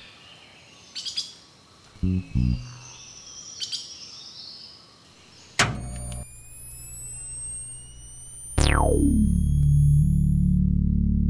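Cartoon sound effects over birdsong ambience: scattered bird chirps and whistles, then a quick downward swoop and a set of slowly rising electronic tones. Near the end a long falling glide drops into a steady, loud, low machine hum with a slight regular pulse as a cartoon front-loading washing machine starts its drum turning.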